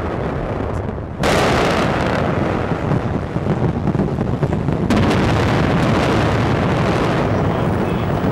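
Explosions of a bombardment: continuous heavy rumbling, with a fresh blast about a second in and another just before five seconds.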